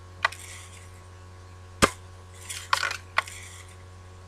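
Daisy Red Ryder lever-action BB gun firing once with a sharp crack about two seconds in. The crack is followed within a second by a quick cluster of clacks and a rattle, then a single click, as the lever is worked. There is a lighter click near the start.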